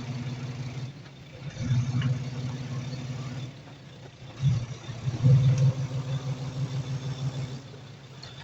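Heavy diesel engine of earthmoving equipment running and working, pulling harder twice: once about a second and a half in and again about four and a half seconds in, easing off after each.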